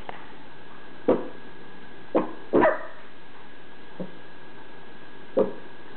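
Newborn baby hiccuping: five short, sharp hiccups about one to one and a half seconds apart, the fourth one faint. One hiccup, about two and a half seconds in, ends in a brief squeak of voice.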